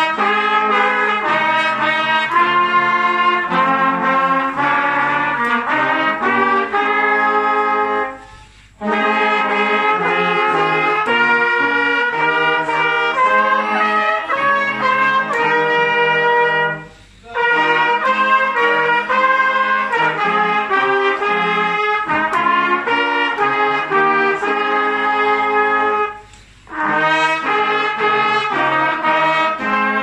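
Brass band led by a row of trumpets playing a tune in harmony. The phrases break off three times, at intervals of about eight to nine seconds, each with a short pause.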